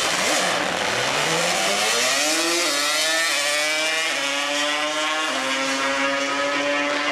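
Sport quad ATV engine accelerating on a drag-strip run: the pitch climbs steadily over the first few seconds, then holds high with a couple of sudden jumps in pitch.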